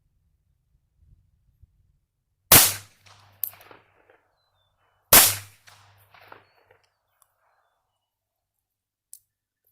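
Two .22 LR shots from a Bond Arms Roughneck derringer, about two and a half seconds apart, emptying its two barrels, each with a short echo trailing after it.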